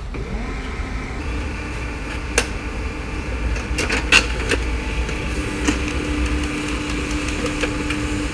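HP LaserJet M15w laser printer printing a page: its motor spins up with a rising whine at the start and then runs with a steady mechanical whir. A few sharp clicks come a few seconds in, and a steady tone is held through the last few seconds as the page feeds out.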